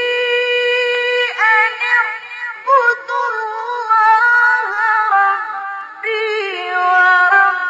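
A male Quran reciter's voice in melodic mujawwad recitation, chanting one long held high note and then running into quick ornamented turns and further melodic phrases, with a brief break a little before six seconds.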